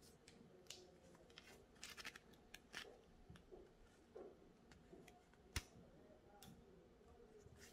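Faint rustling and flicking of a paper instruction booklet's pages being thumbed through, with scattered light clicks and one sharper tap about five and a half seconds in.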